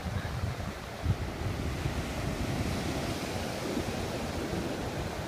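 Gulf surf breaking on a sandy beach, a steady wash of waves, with wind buffeting the microphone in low gusts and a brief thump about a second in.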